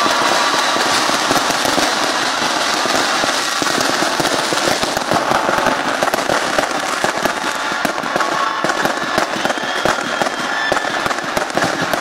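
Fireworks going off in a dense, continuous crackle of many rapid small pops.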